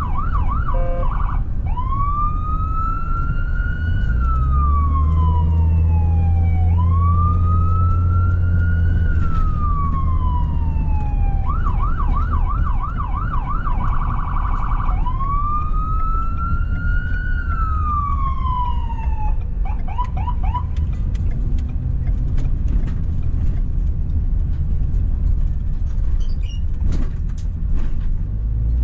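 Ambulance's electronic siren switching between modes: a fast yelp, then three slow rising-and-falling wails with yelp sections between, and a last brief yelp before it shuts off about twenty seconds in. A steady low engine and road rumble runs underneath, heard from inside the cab.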